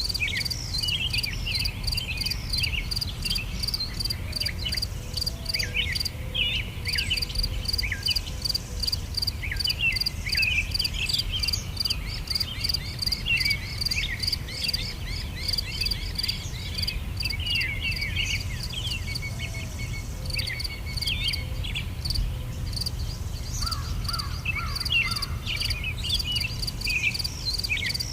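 Natural outdoor ambience: insects trilling in a steady, fast pulsing rhythm, with many birds chirping and twittering throughout, over a low steady rumble.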